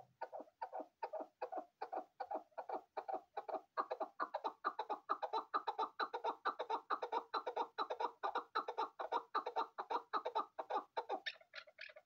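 Chukar partridge calling: a rapid, steady series of short clucking notes, about five a second, with a few higher, sharper notes near the end.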